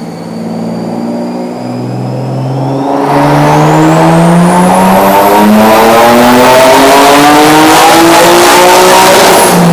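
Single-turbo Nissan 370Z's 3.7-litre V6 making a wide-open-throttle pull on a chassis dyno: the engine note rises steadily in pitch for about eight seconds, getting much louder about three seconds in, with a high whine climbing above it, then cuts off near the end.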